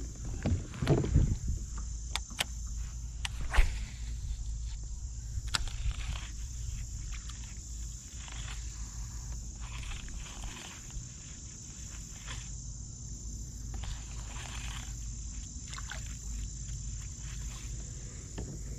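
Steady high-pitched drone of insects, with a few sharp clicks and knocks in the first few seconds.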